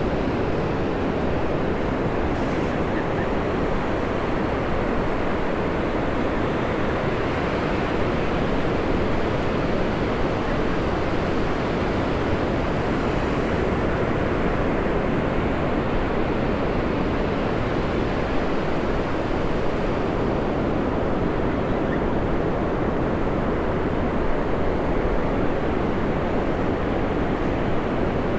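Ocean surf breaking and washing steadily up a sandy beach, with wind rumbling on the microphone.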